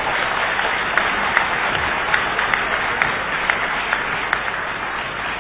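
Audience applauding: a steady, dense wash of clapping that tapers off a little near the end.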